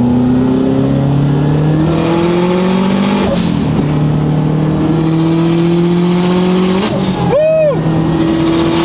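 Subaru WRX STI's turbocharged flat-four accelerating through the gears: engine pitch climbs steadily, drops at an upshift about three seconds in, climbs again and shifts once more near the end. Just after the second shift, a brief pitched sound rises and falls.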